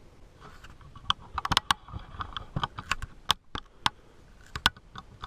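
Irregular sharp clicks and taps, about a dozen over four seconds, from hard small parts knocking together as the bank of lithium 18650-type cells is handled and checked.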